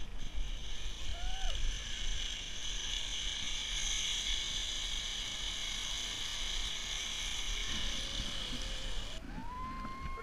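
Zipline trolley's pulley wheels running along the steel cable: a steady high whir that cuts off suddenly about nine seconds in, over a low wind rumble on the microphone.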